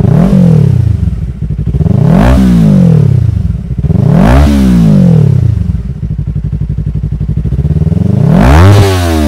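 Yamaha R3's parallel-twin engine revved in four quick blips through a Yoshimura R77 carbon exhaust with its silencer insert removed. Each rev climbs sharply and drops back to idle, with a few seconds of idling before the last one.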